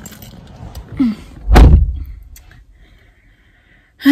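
A car door slamming shut, heard from inside the car: one heavy thud about a second and a half in.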